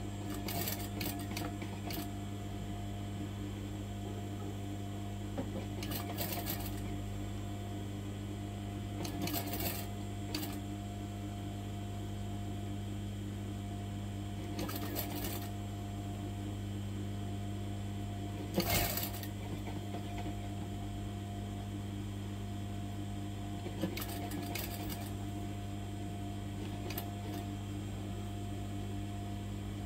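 Sewing machine running steadily while stitching a collar seam, with a few short, louder noises spread through.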